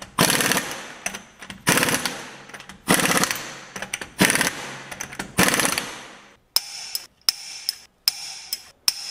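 Air impact wrench running the lug nuts onto a Ford Flex wheel in five rattling bursts of about a second each, one for each nut. After that comes a run of short, sharp clicks as the nuts are tightened with a hand torque wrench.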